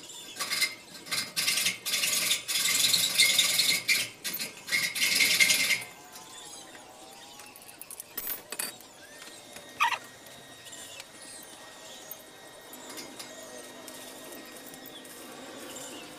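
Stick welding arc crackling on a steel tube railing, in several short bursts and one longer stretch, stopping about six seconds in. After that there are quieter handling sounds and one sharp click near ten seconds.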